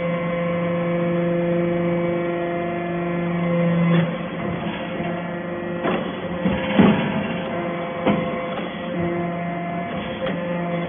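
Hydraulic copper wire baler running: a steady hum from its pump that changes about four seconds in, then a cluster of clanks and knocks in the middle before the hum settles again.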